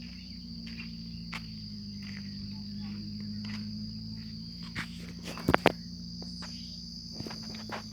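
Steady high-pitched drone of an insect chorus in the vegetation, over a low steady hum. Two sharp clicks stand out about five and a half seconds in.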